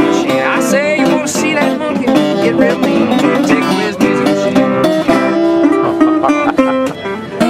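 Metal-bodied resonator guitar fingerpicked in a ragtime tune, with a second acoustic guitar playing along.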